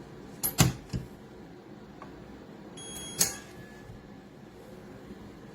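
Biometric pistol safe clicking and beeping: two sharp clicks about half a second in and another at about a second, then a short high electronic beep with a click about three seconds in.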